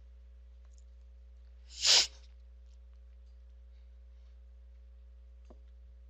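One short, sharp burst of breath from a person close to the microphone, about two seconds in, over a low, steady electrical hum.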